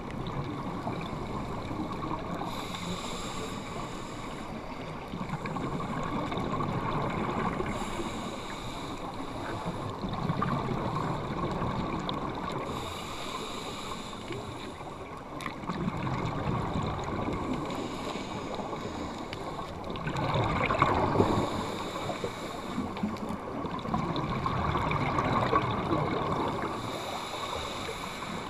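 Underwater sound of scuba divers breathing through regulators: exhaled bubbles come in swells every two to three seconds over a steady underwater hiss.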